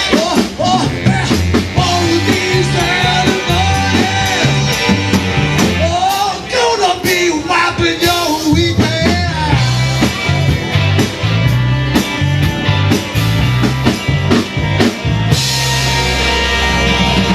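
A rock and roll band playing live, with drums and a bass line stepping from note to note under a melody line that rises and falls in the middle.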